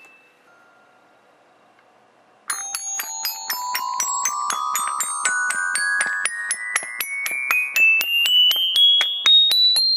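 Robotic glockenspiel, its metal bars struck one after another by solenoid plungers, playing a quick run of single ringing notes that climbs steadily in pitch from the low bars to the top. The run starts about two and a half seconds in, after a faint pause.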